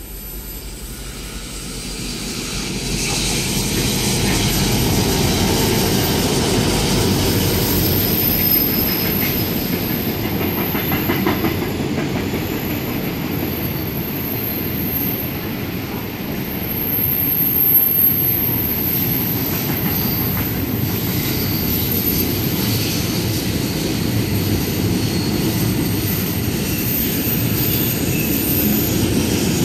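Freight train passing: a loud, steady rumble of wheels on rail that builds over the first few seconds, with faint high wheel squeal on and off and a swell a little past the middle.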